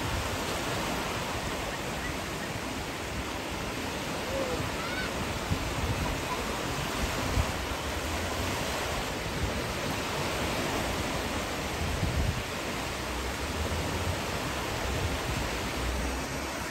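Small sea waves breaking and washing through knee-deep shallows, a steady rushing surf.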